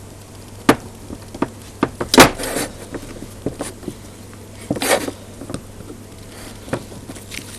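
Clicks, knocks and short scrapes of metal rotator parts and hand tools being worked against each other while prying a stuck Emotator 1200 rotator housing apart. The sharpest knock comes about two seconds in, with a scraping sound right after it and another near the middle.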